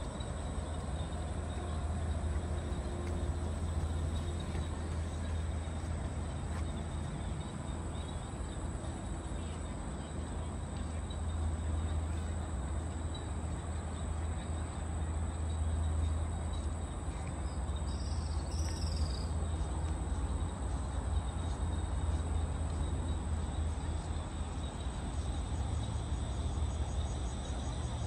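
Outdoor city-park ambience: a steady low rumble of distant traffic under a constant high insect drone, with one short high chirp about two-thirds of the way through.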